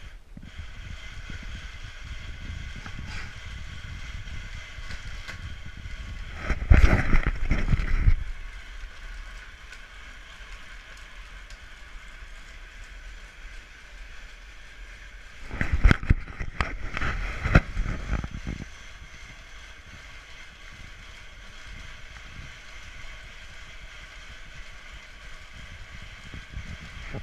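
Bicycle-powered hand grain mill grinding buckwheat, a steady mechanical whirring and rumble from the pedalled drive and the turning burrs. Twice, about a quarter of the way in and again past the middle, it turns louder with a rattling clatter for two or three seconds.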